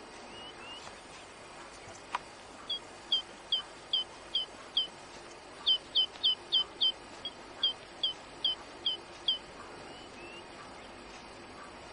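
A songbird singing runs of short, high, down-slurred notes, about two to four a second in three bursts, the middle run faster. A few softer rising call notes come near the start and near the end, and there is one sharp click about two seconds in.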